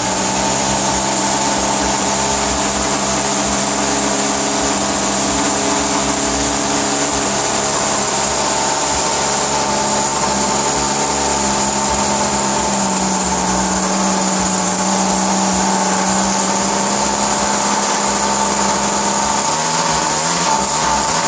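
ASP 56 model aircraft glow engine running steadily at high speed on a bench test stand, spinning its propeller, during its first run-in after being built. Its speed steps up slightly about two-thirds of the way through and wavers near the end while the needle valve is being adjusted.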